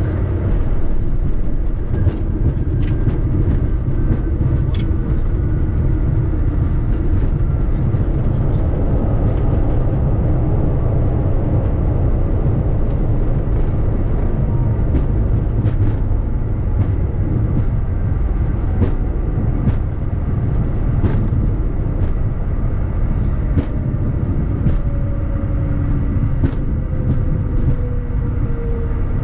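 Cockpit noise of a Bombardier Challenger 350 jet: a loud, steady low rumble of its turbofan engines and the air rushing past, with faint whines that slowly fall in pitch as the engines wind down, and scattered light clicks.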